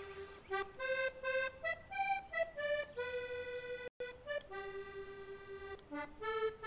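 Accordion playing a vallenato melody, a single line of notes stepping up and down, with a brief gap about four seconds in.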